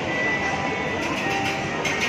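Background music over a steady, noisy rumble.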